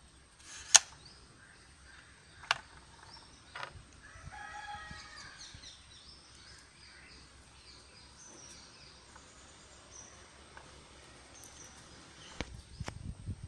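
Two sharp clicks, about two seconds apart, as a bobbin is handled on a mini sewing machine, with a softer click and scattered handling knocks later. In the background a rooster crows once, followed by small birds chirping.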